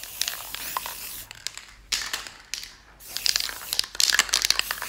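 Aerosol spray paint can hissing in short bursts as it coats the canvas edges, with a plastic sheet crinkling under the canvas, the crinkling densest in the last couple of seconds.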